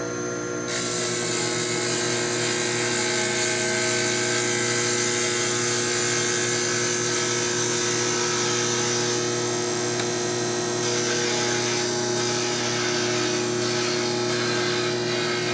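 Cue lathe running with a tool cutting into a spinning maple cue handle: a steady motor whine, with the cutting hiss getting louder about a second in.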